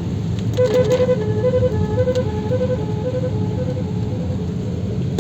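A multi-tone electronic car horn from a 21-sound horn kit plays a tune-like pattern of short beeping notes that hop between a few pitches, starting about half a second in. It is set to one of its selectable tone patterns, chosen by pressing the horn button twice. A low steady rumble runs underneath.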